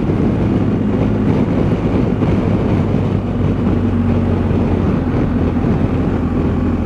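BMW R1250 boxer-twin motorcycle engine running at a steady cruising speed, a constant low hum heard from the saddle, with wind rushing over the microphone.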